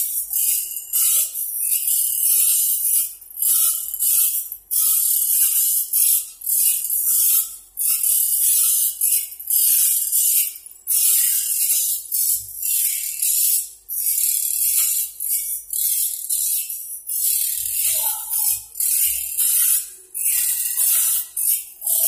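Three automatic band-saw blade sharpening machines running together, their grinding wheels stroking the blade teeth one after another in a quick, repeating rhythm of hissing grinds and mechanical clicks, the machines' strokes overlapping.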